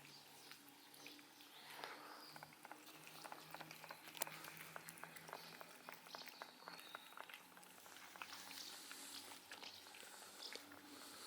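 Faint cat sounds: a scatter of soft clicks and ticks, with one sharper tick about four seconds in, over a low steady hum.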